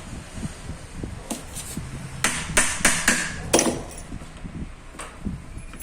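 Sharp metallic knocks and clinks as parts of a Pajero starter motor are handled and taken apart. About five loud strikes come close together in the middle, with lighter taps around them.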